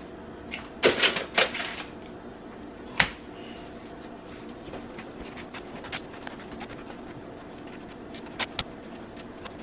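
Chef's knife knocking and scraping on a wooden cutting board while raw beef is cut into chunks: a cluster of knocks about a second in, a single sharp tap near three seconds, and two more taps near the end.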